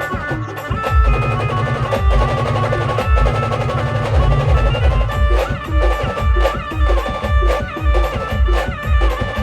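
Live band music: a held melody line over rolling drums, settling about halfway into a heavy bass-drum beat about twice a second with sharp hits on top.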